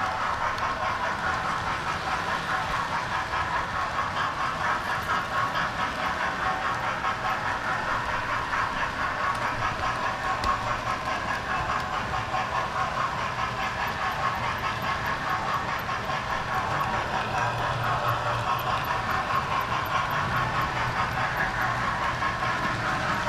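Model railway train running on its track: a steady rattling hum of wheels and motor with a quick, even pulse, heard close up from aboard the train.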